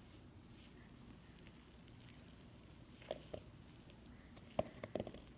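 Fluffy shaving-cream slime being squeezed and worked in the hand, quiet, with a couple of soft squishy pops about three seconds in and a short cluster of sharper pops and clicks near the end.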